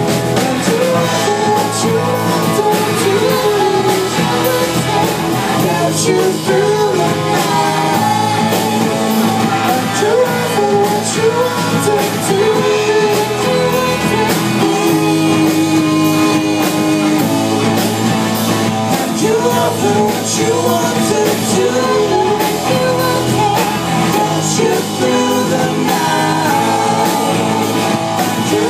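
Live rock band playing: electric guitars, a drum kit with frequent cymbal hits, and singing over them, loud and steady.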